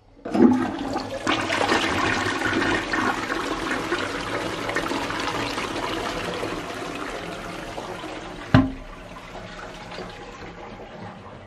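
Toilet flushing: a knock, then a loud rush of water that slowly fades, another sharp knock about eight and a half seconds in, then a quieter hiss of running water.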